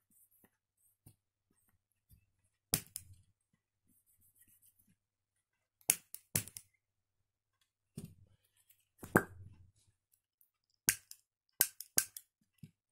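A series of about eight sharp, separate clicks as a piezo lighter igniter wired to a plastic syringe is pressed and handled, the loudest about two-thirds of the way through.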